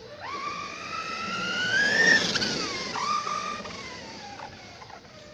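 Redcat Kaiju brushless RC monster truck accelerating: its motor and drivetrain whine climbs in pitch to its loudest about two seconds in, then drops and fades as the truck drives off.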